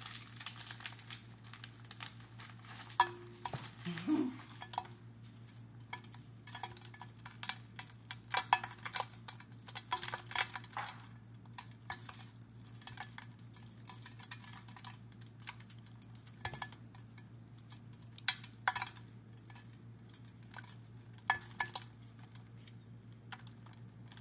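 Hands packing brown sugar onto a ham: irregular light taps, scrapes and rustles over a low steady hum.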